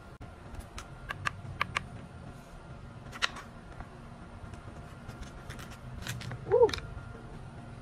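A kitchen knife cutting into a small watermelon on a wooden cutting board: scattered clicks and crunches as the blade goes through the rind. Near the end comes a short squeak, the loudest sound.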